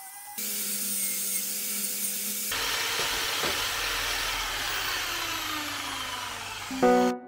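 Corded Bosch PSB drill clamped to a workbench, spinning a brush wheel against a motorcycle swingarm to strip and clean it. A steady motor hum runs under a rough rubbing and scraping noise.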